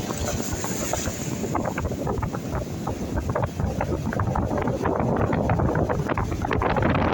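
Gusty wind buffeting the microphone, an uneven rumble with many short gusts.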